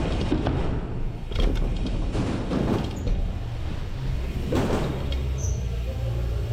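Dirt-jump bike riding: a steady low rumble of wind buffeting the microphone and tyres rolling on packed dirt, with several short rushing swells as the bike speeds through the track.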